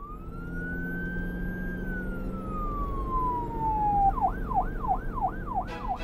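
Police car siren sounding a wail that rises, then falls slowly, then switches about four seconds in to a fast yelp of about three sweeps a second.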